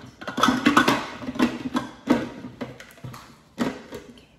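Hard plastic parts of a Cuisinart food processor being fitted together: the bowl and lid knocking and clicking into place onto the base, in a string of sharp knocks and clicks.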